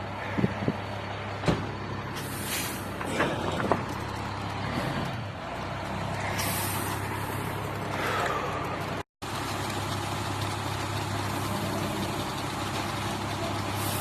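Concrete mixer truck's engine running steadily with a low hum, with a few sharp knocks in the first four seconds and short bursts of air hissing.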